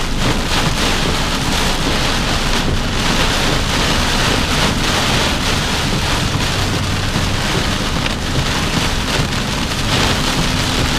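Heavy rain in a sudden downpour, falling hard and steady without a break.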